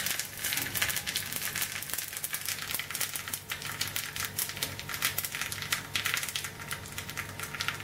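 Mustard seeds popping and curry leaves spluttering in hot sesame oil in a small iron tempering pan: a dense, irregular crackle over a low steady hum.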